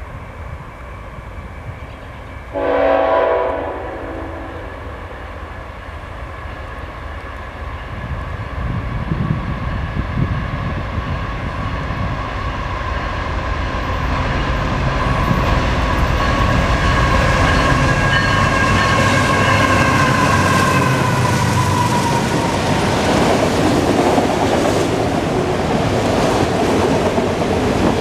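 Freight train passing: the lead GE ET44AH diesel locomotive's horn sounds a short blast about three seconds in, then the engine grows louder and a long horn blast follows, its pitch dropping as the locomotive goes by. Afterwards the rumble and clatter of the freight cars rolling past takes over.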